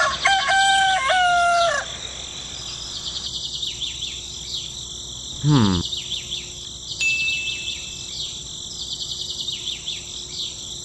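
A rooster crows once, a long call held at a few steady pitches, then small birds chirp throughout. About halfway, a short call sweeps quickly down in pitch.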